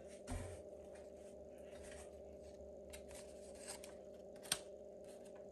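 Quiet handling of box packaging, with a soft thump just after the start, faint rustles and light clicks, and one sharp click about four and a half seconds in, over a steady low electrical hum.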